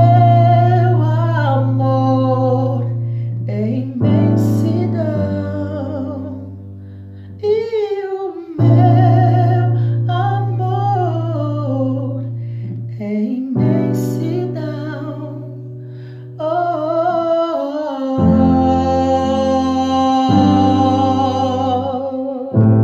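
A man singing a slow ballad, long drawn-out phrases without clear words that slide up and down in pitch, ending on a long held note. Under the voice, held keyboard chords change every few seconds.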